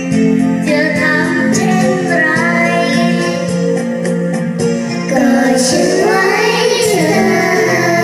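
Children singing together into handheld microphones over instrumental backing music.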